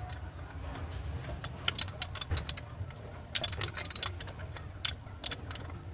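Hand ratchet wrench clicking in short runs, with scattered metal-on-metal taps, as the bolts holding the engine's clutch fan are undone. A fast run of clicks comes a little past halfway.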